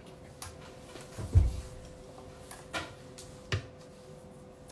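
A few light knocks and handling thumps over a faint steady hum; the heaviest, dull thump comes about a second and a half in.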